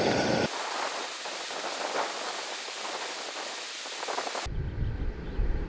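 Hissing and fine crackling from a propane gas burner heating a sealed food can. About four and a half seconds in, the sound cuts abruptly to a low rumble.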